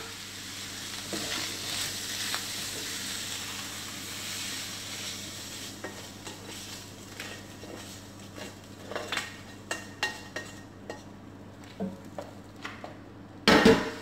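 Fried chicken sizzling in a hot frying pan, the hiss fading after the first few seconds, then a slotted spatula scraping and knocking against the pan as the chicken is scraped out into the rice. There is a louder knock near the end.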